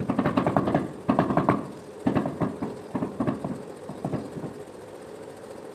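A mason's trowel chopping and working a heap of cement mortar on the floor: five quick bursts of rapid strokes over about four seconds.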